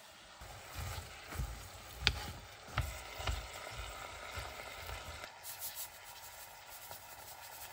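Chopped vegetables and minced meat sizzling faintly in a nonstick saucepan while being stirred with wooden chopsticks, which knock against the pan several times in the first few seconds.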